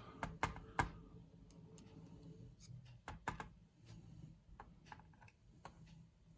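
Faint, scattered clicks and taps of small metal lock parts being handled as a pin-tumbler lock is taken apart and its pins picked out. There are two sharper clicks in the first second and another cluster about three seconds in.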